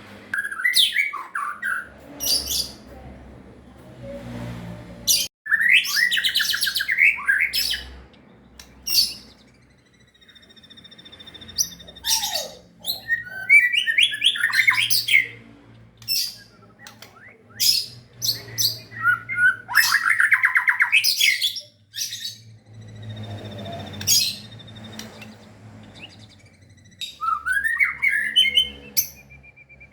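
White-rumped shama (murai batu) song: a fast, varied run of loud whistled phrases, rapid trills and harsh chattering notes broken by short pauses, over a faint low hum. It is a lure song meant to set a silent caged shama singing.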